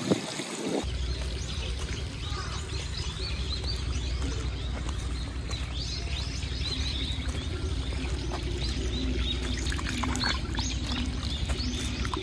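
Shallow pool water trickling and splashing as a dachshund wades through it, with many short high chirps of small birds over it.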